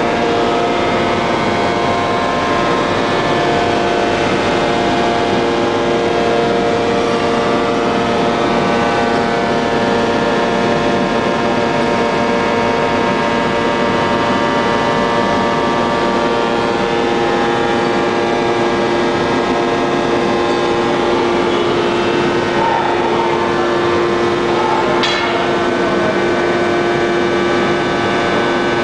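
Hydraulic open-die forging press running: a loud, steady machine drone with several held tones, and one short knock near the end.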